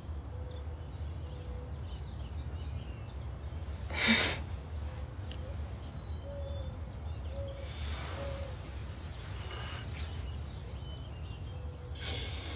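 Quiet ambience with a low steady rumble and faint bird calls chirping throughout, and one short breathy sound, like a sigh, about four seconds in.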